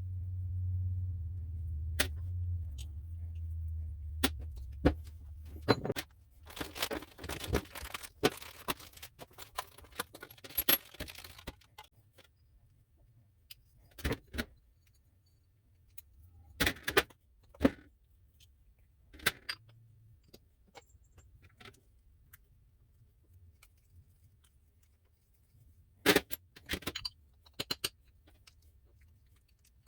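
Small metal parts and tools clinking and clattering in irregular knocks and jingles, dense for a few seconds and then scattered. A low hum runs underneath until about six seconds in, then stops.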